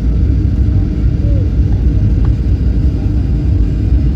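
Steady low rumble of an airliner heard from inside the passenger cabin, engine and rolling noise running on evenly.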